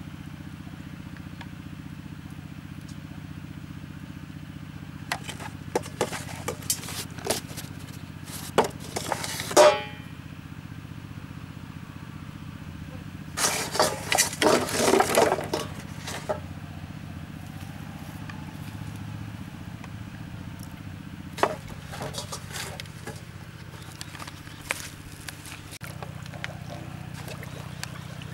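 A plastic bottle crackling and clicking as it is handled, loudest in bursts just before ten seconds in and again from about thirteen to sixteen seconds in, over a steady low motor drone.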